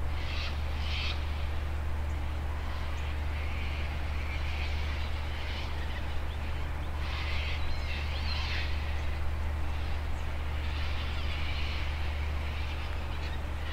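Outdoor ambience: a steady low hum under scattered, short, distant bird calls that come every second or two.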